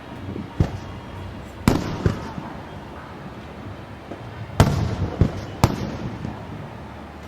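Aerial fireworks shells bursting overhead: about six sharp bangs, each trailing off in a rumbling echo, with the loudest a little past halfway.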